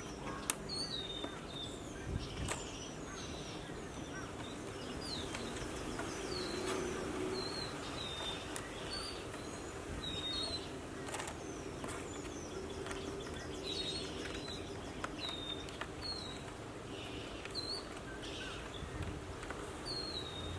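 A small bird chirping over and over, a short hooked note repeated roughly once a second, over a steady outdoor background with a few faint clicks.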